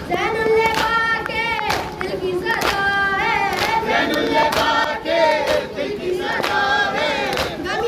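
A Shia nauha lament sung over handheld microphones, with the crowd of mourners singing along, and the regular slaps of hands beating on chests (matam) keeping the beat.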